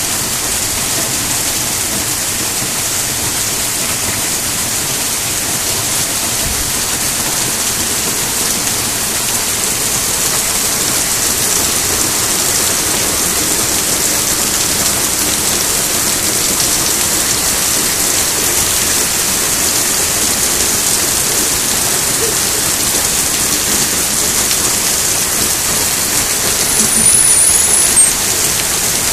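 Heavy rain pouring down steadily, hissing on pavement and drumming on a plastic wheelie-bin lid. Near the end there is a brief high squeak.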